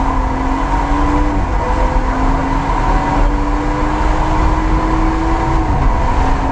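BMW M140i's turbocharged straight-six, JB4-tuned and fitted with a BCS valved exhaust, heard from inside the cabin under hard acceleration on track. The engine note climbs steadily, dips briefly at a gear change about a second and a half in, climbs again and falls near the end, over a heavy drone of road and tyre noise.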